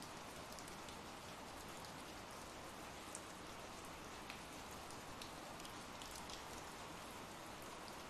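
Faint, steady rain, an ambient rain sound-effect bed, with a few louder individual drops ticking through it.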